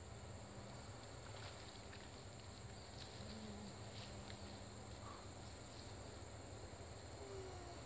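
Faint outdoor ambience: a steady thin high-pitched tone, with a few faint soft ticks and a few faint short chirps near the end.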